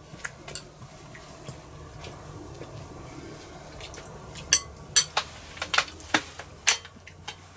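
Spoons clinking and scraping against soup bowls as people eat, in scattered irregular taps that come thickest in the second half.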